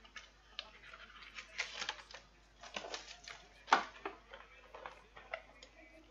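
Trading cards and their plastic pack wrappers being handled close to the microphone: irregular clicks, taps and crinkles, the loudest a sharp click nearly four seconds in.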